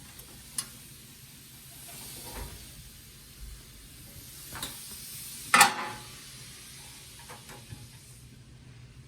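Scattered light clicks and taps of small metal carburetor parts and tools being handled during reassembly, with one louder clack a little past halfway.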